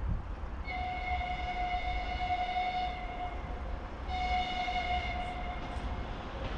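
ChME3 shunting diesel locomotive sounding its horn twice: a long blast of about two and a half seconds, then a shorter one of about a second and a half. A steady low rumble runs underneath.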